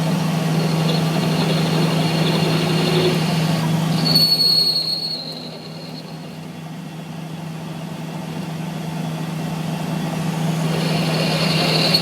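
Workshop machinery running with a steady hum; a high-pitched squeal sounds about four seconds in, then the noise drops and builds again near the end.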